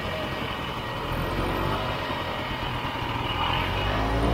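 1967 Ski-Doo Olympique's single-cylinder two-stroke engine running while the snowmobile is ridden along a trail, getting louder near the end as it speeds up.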